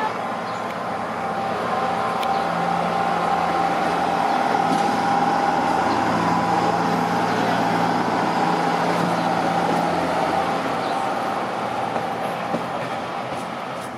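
Red Hen diesel railcar's engine running as the railcar pulls away and passes close by, with a steady whine over the engine's drone. It is loudest about halfway through and fades a little as the railcar moves off.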